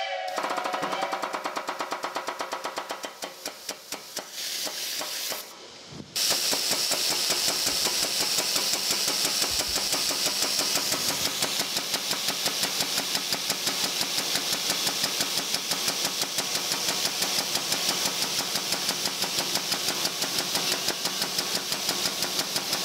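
Air-over-hydraulic pump on a shop press running, a rapid, even pulsing with air hiss as it drives the ram to push an old shaft out of a heated pulley hub. It runs in fits at first and then steadily from about six seconds in.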